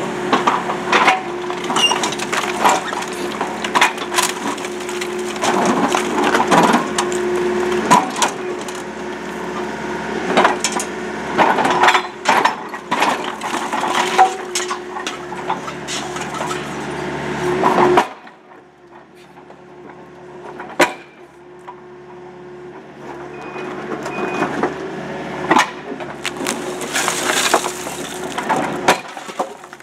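Rockblaster hydraulic breaker hammer on a Case mini excavator pounding and cracking a concrete pool wall, over the excavator's steady engine, with broken concrete crunching and falling. About 18 seconds in the hammering stops abruptly and it goes quieter, leaving scattered knocks of concrete before the work picks up again near the end.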